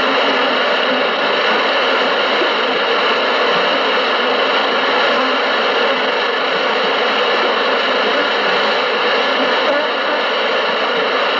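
Steady, loud rushing noise with no pitch, beat or distinct events, its level unchanging.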